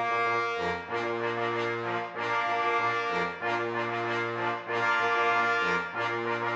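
Background music led by brass, playing held chords over a bass line that changes note every second or so.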